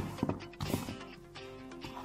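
Background music with steady held notes, over a few sharp knocks and thumps of dough being kneaded by hand in a plastic basin.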